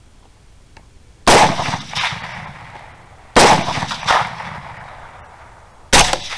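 Three rifle shots from a suppressed 6.5 Grendel: a little over a second in, about two seconds later, and again near the end. Each crack is followed by a fainter second report about two-thirds of a second later and an echo that dies away.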